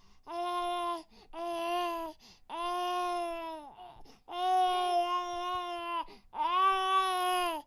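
A baby crying in five wails of about a second each, with short breaths between them; the fourth wail runs longest, and each one holds a steady pitch before dropping off at its end.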